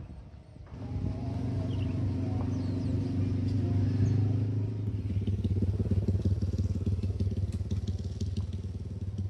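Motor vehicle engine running close by: a steady low hum that starts suddenly about a second in and holds.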